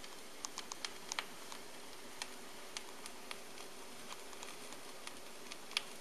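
Vinyl record surface noise from a stylus tracking the groove on an Onkyo PL-25F linear-tracking turntable, with no music heard. It is a steady faint hiss with irregular crackles and pops, a little cluster in the first second and a couple of sharper pops near the end.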